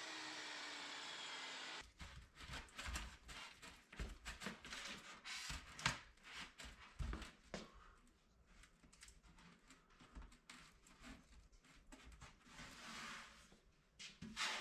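A table saw's motor whining down in pitch after a cut, then, from about two seconds in, scattered light taps, scrapes and rustles of rigid foam board being handled and fitted into a sink.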